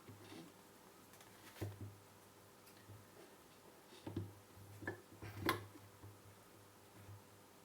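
A few light clicks and knocks, about five, scattered over several seconds, from a circuit board and tools being handled on a workbench, over a faint low hum.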